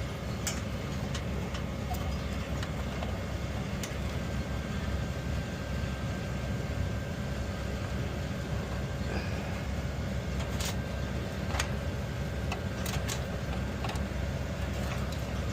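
Steady low mechanical rumble with a faint steady hum, broken by a few light clicks.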